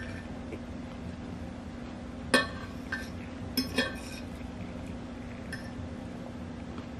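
Metal fork clinking against a glass plate while picking up food: four ringing clinks around the middle, the first the loudest, over a steady low hum.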